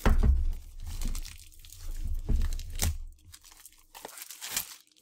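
Plastic shrink wrap being peeled and torn off a cardboard box, crinkling and crackling in irregular bursts, with a low rumble of the box being handled over the first three seconds.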